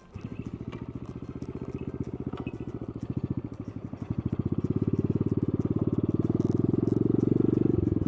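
Honda Monkey Z50J's small single-cylinder four-stroke engine running with a rapid, even pulse. It grows louder about four seconds in as the engine is opened up, with a short break in the sound near the end.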